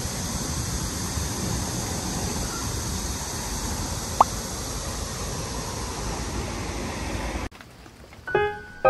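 Outdoor roadside ambience: a steady hissing wash over the low rumble of passing traffic, with one short rising chirp about four seconds in. It cuts off sharply near the end, and soft piano music begins.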